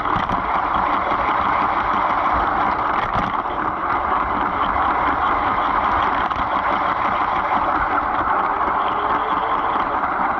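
A LEGO train running along plastic track, heard from a camera riding inside one of its passenger cars: a steady rolling noise of wheels and motor.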